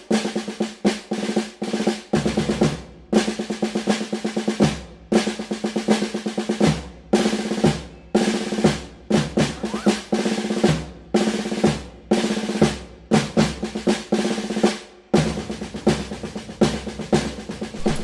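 Soundtrack music built on a snare drum playing rolls and rapid strokes, in short phrases broken by brief gaps.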